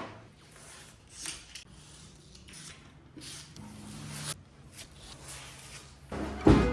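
Faint, irregular rubbing and scraping strokes of hand work on wood, with a sharp knock at the start and a louder burst near the end.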